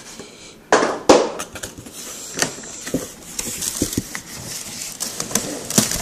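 Cardboard laptop packaging being handled and pulled from its box: two loud bumps about a second in, then irregular scraping, clicking and rustling of cardboard.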